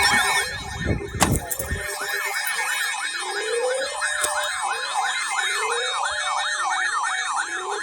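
Emergency vehicle sirens sounding together: a fast yelp sweeping up and down about three times a second, over a slower rising wail. A low rumble with a sharp knock comes in the first two seconds.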